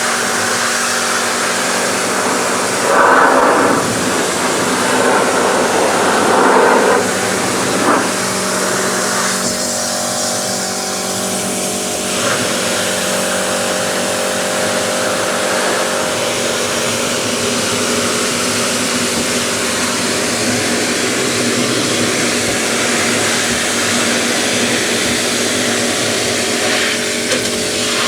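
AVA Evolution electric pressure washer running, its motor humming steadily under the hiss of the high-pressure water jet blasting the inside of a plastic wheelie bin. The spray gets louder and rougher for a couple of spells in the first half as the jet moves over the bin.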